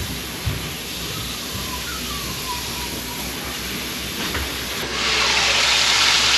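Steady hiss from a large pot boiling on a gas burner, then, about five seconds in, a much louder, bright sizzling of thick-cut pork pieces frying in a pan on a gas stove takes over abruptly.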